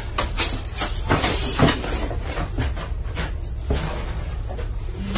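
A series of knocks and clatters, most of them in the first two seconds and another a little over halfway through, over a steady low hum.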